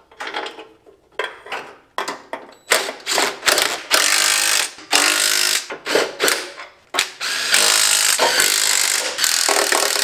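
A power tool running down bolts, first in short bursts, then in longer runs of about a second each from about four seconds in.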